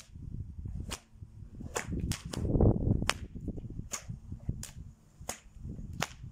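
A six-foot, eight-plait cowhide Australian stock whip being cracked repeatedly, with about ten sharp cracks at roughly one or two a second and a quick double crack around two seconds in. A low rumbling noise swells under the cracks about two and a half seconds in.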